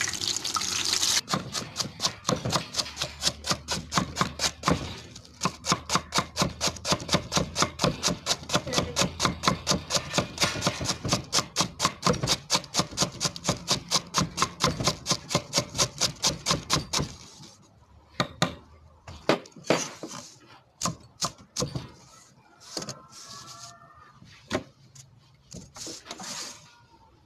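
Frying oil sizzling for about the first second, then a kitchen knife shredding cabbage on a thick wooden chopping block: rapid, even knocks about four a second for some sixteen seconds, then slower, scattered cuts.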